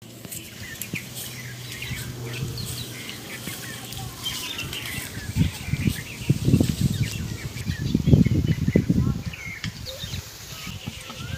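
Small birds chirping repeatedly in the background. For a few seconds in the middle, low rumbling thuds come in and are the loudest sound.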